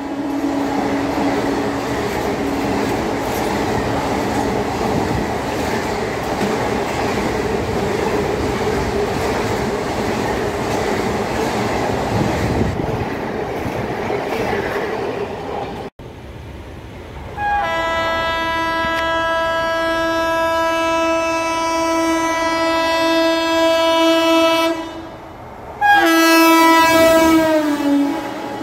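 Passenger coaches of an express train running fast past a platform, a steady noise of wheels on the track. After a sudden break, a Vande Bharat Express trainset sounds one long, steady horn blast. A second, shorter blast drops in pitch as the train passes.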